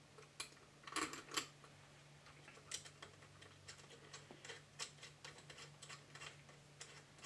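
Light, irregular clicks and taps of hands fitting a handle onto an air compressor's cylinder heads, with a few louder clinks in the first second and a half, over a faint steady low hum.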